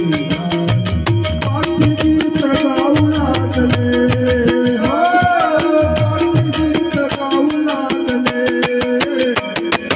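Instrumental interlude of a Marathi devotional song: a held, gliding melody line over a walking bass and a steady beat of rattling shaker-like percussion.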